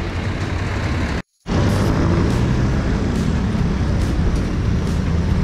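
Wind rumbling on the camera microphone of a moving bicycle, with road noise under it. The sound cuts out completely for a moment about a second in.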